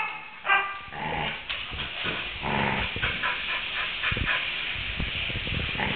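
Samoyed dog yowling in short pitched calls, one about half a second in and another about two and a half seconds in.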